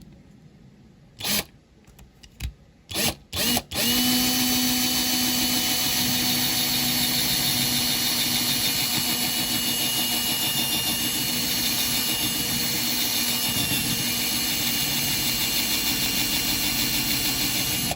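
Small electric drill blipped briefly three or four times, then run steadily for about fourteen seconds with a constant whine, drilling out a rivet to get the base off a diecast model car.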